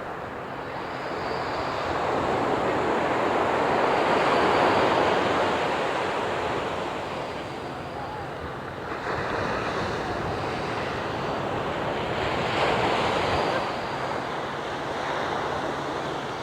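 Ocean surf washing in, an even rush that swells about four seconds in, eases, and builds again twice, with some wind buffeting the microphone.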